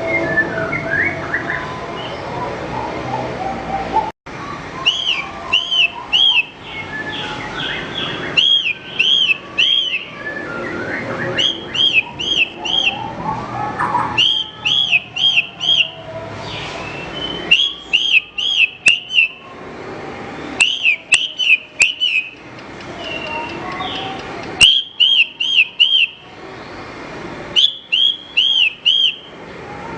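Javan bush lark (branjangan) singing: quick runs of three to five repeated arched, whistled notes, alternating with varied twittering chirps. The sound drops out briefly about four seconds in.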